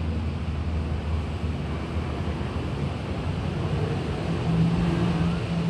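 A low, steady motor hum over a rushing outdoor noise. The hum shifts to a higher pitch near the end.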